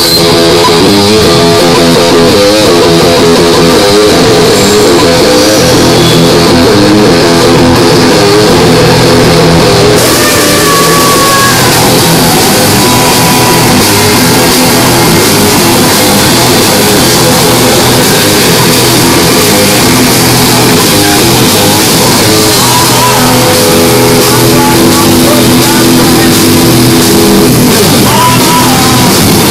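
Live rock band playing loudly: electric guitars, saxophone and drum kit, with the sound filling out in the treble about ten seconds in.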